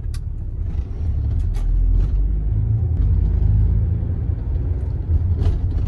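Steady low rumble of a taxi's engine and tyres on the road, heard from inside the cabin while it drives, with a few faint clicks.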